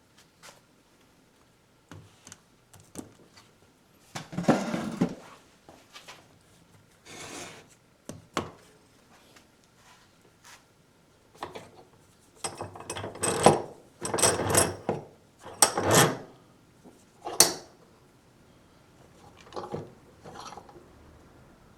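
Irregular rubbing and scraping of wood in short strokes, with a quicker run of several strokes a little over halfway through.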